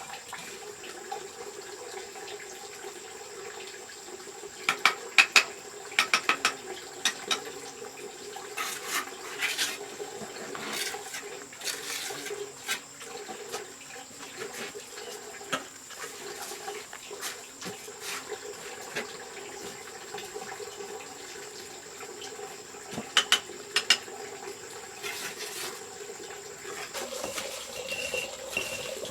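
Steady sound of running or splashing water, broken by several clusters of sharp clinking taps.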